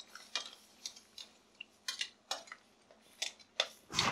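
Metal kitchen tongs clicking and clinking against a stainless steel sauté pan of shellfish in sauce, about eight sharp clicks at uneven intervals.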